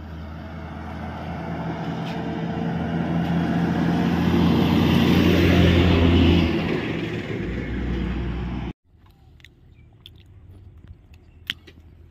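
Heavy truck engine and tyres passing on a highway: a low drone that builds up, peaks about halfway through and begins to fade. It cuts off abruptly about three-quarters of the way in, leaving only faint clicks and knocks.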